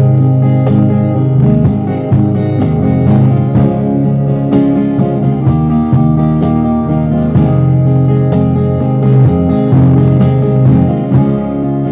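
Live band playing an instrumental break between sung verses, with a steady drum beat under a bass line and sustained melody notes.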